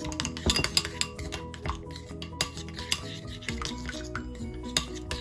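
A spoon stirring a thick, oily chilli-powder paste in a ceramic bowl, with irregular clicks and scrapes against the bowl's sides, over background music.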